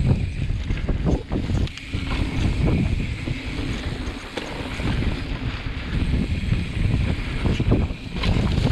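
Wind buffeting the microphone, with a loud, gusty low rumble that swells and dips.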